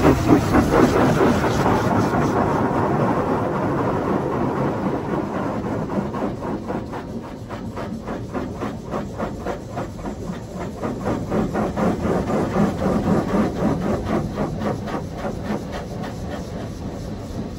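Touch-free automatic car wash (HydroSpray Rainmaker) blasting high-pressure water onto the car, heard from inside the cabin as a dense rushing spray on the glass and body. From about six seconds in it turns into a rapid, even pulsing patter of about three beats a second.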